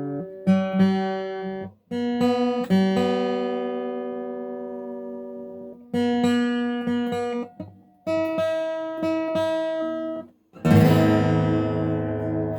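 Epiphone Hummingbird steel-string acoustic guitar, with a spruce top and solid rosewood back and sides, being strummed. Its chords are each left to ring and fade, with brief silences between a few of them, and a louder, fuller strum near the end.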